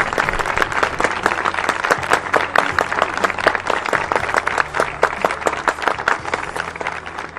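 Crowd applauding: dense, continuous clapping that thins out and fades near the end.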